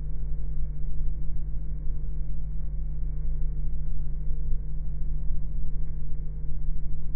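Steady low drone of a jet airliner's engines, heard from inside the cabin as the plane taxis. A faint higher tone swells and fades every second or two.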